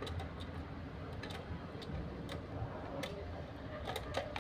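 Faint, irregular clicks of a small screwdriver turning a screw in the plastic battery cover of a toy car's remote control.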